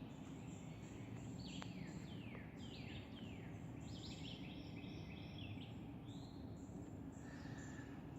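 Several birds calling at once, many short notes sliding downward in pitch, overlapping one another throughout. A steady low rumble of background noise lies underneath.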